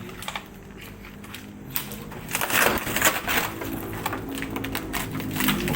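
Crunching and snapping of footsteps through dry debris and brush, growing louder about two seconds in.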